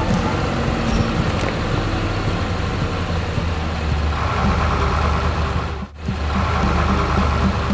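A vehicle engine running steadily with a deep rumble, broken by a short gap about six seconds in.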